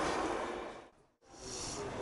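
Train noise on the railway fading out to dead silence just after a second in, then outdoor sound from another take fading back in.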